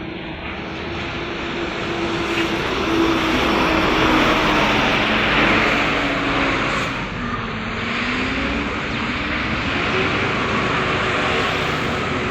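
Large tour bus driving past at close range: engine and road noise swell to a peak about four seconds in and stay loud. The engine's hum drops in pitch, then rises again a little before the end.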